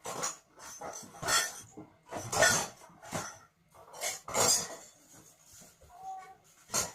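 Dishes and cutlery clattering during washing up: a run of irregular clinks and clatters about once a second.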